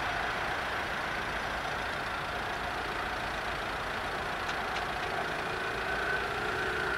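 Road traffic: car engines idling and running with a steady hiss of traffic noise. A steadier engine note comes in about five seconds in as a car moves off.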